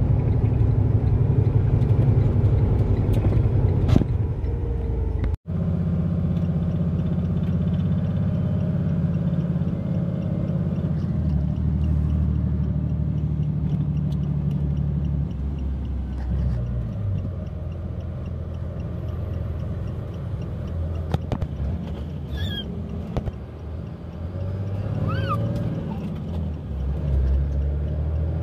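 Semi-truck engine running as it drives, a steady low drone whose pitch shifts up and down several times. There is a brief dropout about five seconds in.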